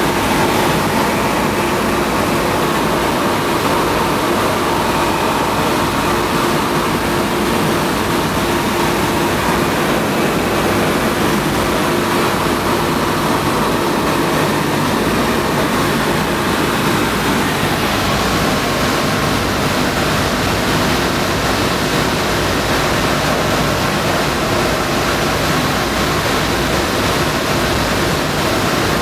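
Inside a B-17G on final approach, its four Wright R-1820 Cyclone radial engines and the rushing airflow make a loud, steady drone.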